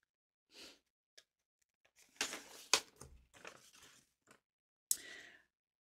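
Quiet, intermittent rustling and a few sharp clicks of paper being handled as a folded note from a package is opened.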